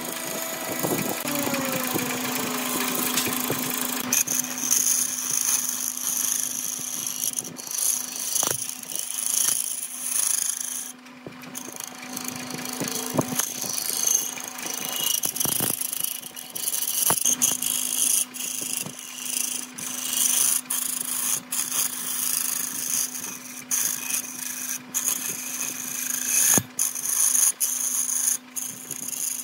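A lathe runs with a steady hum while a hand-held gouge cuts a spinning block of epoxy resin and bamboo root. The cut gives a continuous high, hissing scrape, broken by irregular clicks and knocks.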